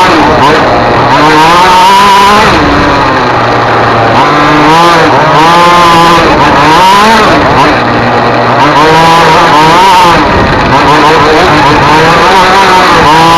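Racing engine at high revs during a competition run, its pitch climbing under acceleration and dropping back, rising and falling repeatedly. It is loud and close, as if heard from the vehicle.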